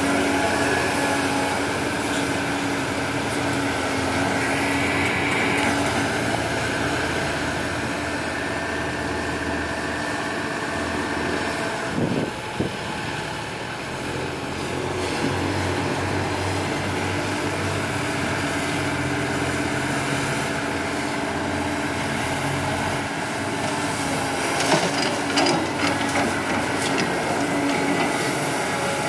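A CAT 320D hydraulic excavator's six-cylinder diesel engine runs steadily under load as it digs and swings. A few knocks come about halfway through and again as a cluster near the end, as the bucket works and empties over the dump truck.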